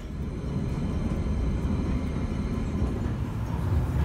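London Underground Piccadilly line train running, heard from inside the carriage as a steady low rumble with a fainter hiss of track noise above it.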